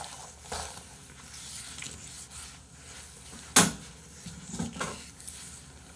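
Quiet room with a few light clicks and knocks from objects being handled on a desk. The sharpest, loudest tap comes about three and a half seconds in, with softer ones just after it.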